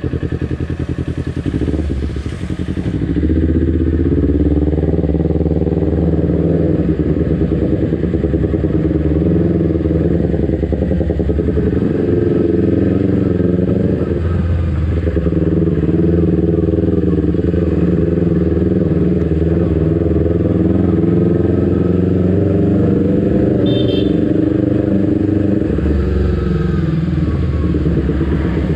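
A Kawasaki Ninja 250 Fi's parallel-twin engine fitted with an R9 aftermarket exhaust, running at low road speed. The engine note dips briefly twice, about two seconds in and again about fourteen seconds in, then carries on steadily.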